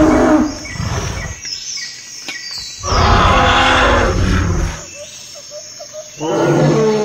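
Dinosaur roar sound effect: three long, loud roars about three seconds apart.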